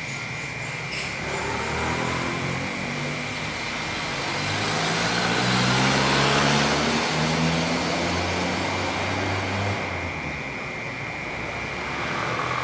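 A motor vehicle passes by, its engine and tyre noise swelling to a peak about halfway through and fading away. Under it runs the steady high drone of cicadas.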